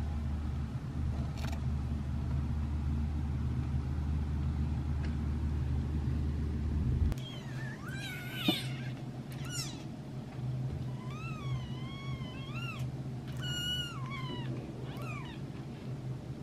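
Newborn kitten, about 12 days old, mewing repeatedly in thin, high calls that rise and fall, complaining at being woken up. A steady low hum fills the first half and cuts off about seven seconds in, just before the mewing starts.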